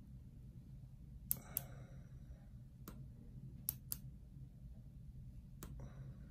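Faint, sharp clicks of steel surgical instruments being handled at a toenail procedure, about six of them at irregular intervals, over a low steady room hum.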